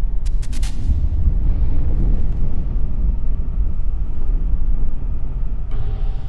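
Small air-cooled engine with a clear cylinder head running with a low, steady rumble. A quick run of four sharp clicks comes about half a second in.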